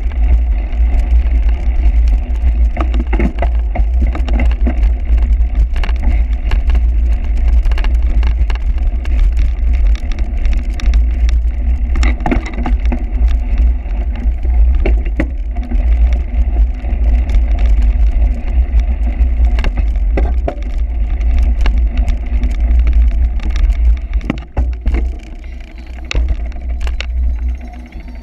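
A cyclocross bike rattling and knocking over rough ground, under a heavy, steady wind rumble on the microphone.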